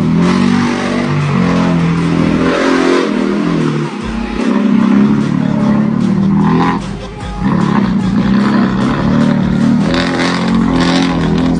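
Dump truck's diesel engine running hard and revving, its pitch rising and falling, with brief drops in revs about four and seven seconds in.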